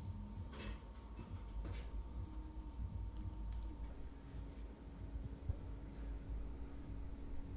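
Cricket chirping steadily, about two short high chirps a second, over a low background rumble.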